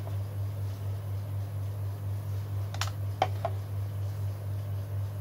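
A steady low electrical hum, with three quick plastic clicks about three seconds in from a UNI-T UT201+ digital clamp meter being handled, its rotary selector turned toward AC voltage.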